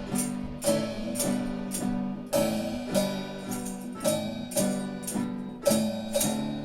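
Instrumental music: chords struck in a steady rhythm, about two a second.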